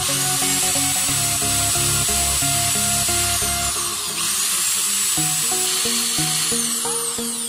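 Small high-speed electric drill boring into a solid brass lump, its high whine dipping and climbing back twice as it bites, then falling away near the end as it winds down.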